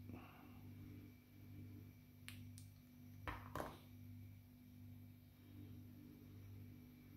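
Light clicks of plastic Nerf blaster parts being handled, over a steady low hum. There are two faint clicks a little past two seconds in and two sharper ones a third of a second apart around three and a half seconds.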